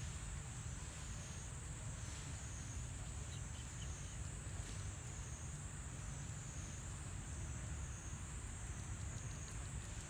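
Insects droning steadily in a high band that swells and fades gently, over a low steady rumble.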